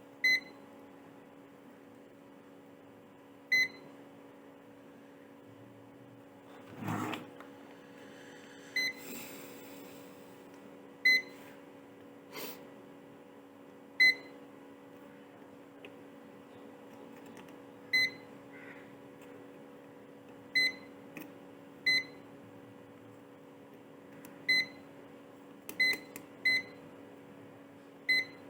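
Short, high electronic beeps, about a dozen at irregular intervals, over a steady low hum, with a brief clatter about seven seconds in.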